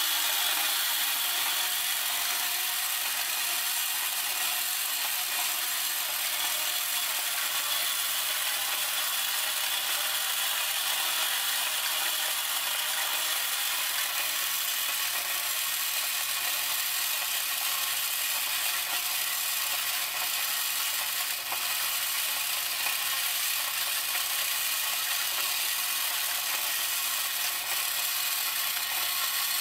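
Clockwork spring motor of a 1935 Hoge Popeye tin wind-up rowboat toy running, its gears whirring steadily as the rowing mechanism works Popeye's arms and oars.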